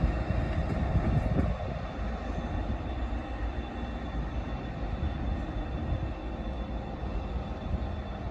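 Train running past on the line: a steady rumble of wheels on rail, louder for the first second and a half and then easing to a slightly quieter, even run.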